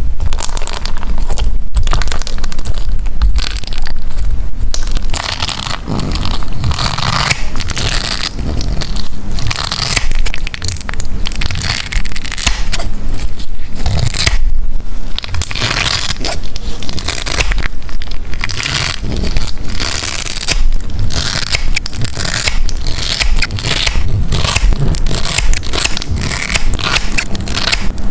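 Honeycomb-textured slime being pressed, peeled and cut with scissors, giving dense, irregular crackling and crunching.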